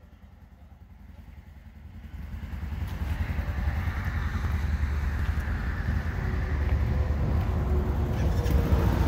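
Wind buffeting the microphone: an irregular low rumble that builds over the first three seconds and then stays strong.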